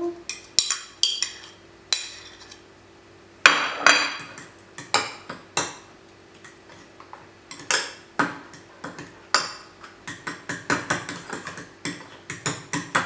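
Metal utensil clinking and scraping against a ceramic bowl as mashed banana is scraped in and stirred into beaten egg for banana pancake batter. Irregular clinks at first, then a quicker run of several clinks a second near the end.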